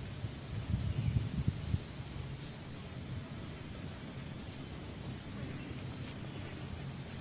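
A bird repeating a short, high call three times, about two seconds apart, over a steady low rumble of outdoor noise. There are a few soft low knocks about a second in.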